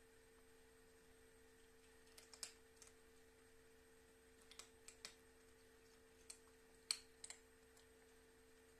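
Near silence: a steady low hum with scattered faint, sharp clicks in small clusters from about two seconds in, the loudest near seven seconds.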